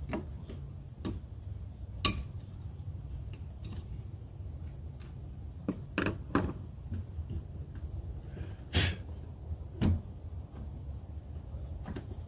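Scattered sharp clicks and knocks of a screwdriver and hand tools on the plastic clamp and fittings of a car's fuel-pump access cover, over a steady low rumble. The loudest click comes about two seconds in, with a few more knocks later.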